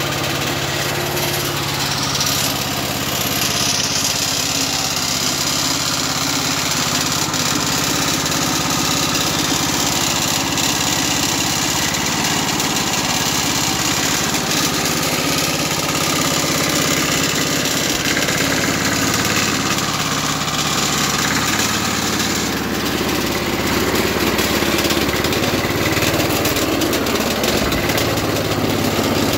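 A 1976 Rover Prince 19 rotary lawn mower's small petrol engine running steadily, just started cold after a long period of storage. About three-quarters through it gets a little louder and heavier.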